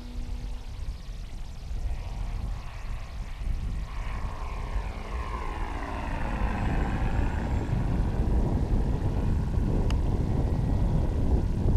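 E-flite Carbon-Z T-28 Trojan radio-controlled model plane flying past overhead, its whine dropping in pitch as it passes. Low wind rumble on the microphone grows louder in the second half.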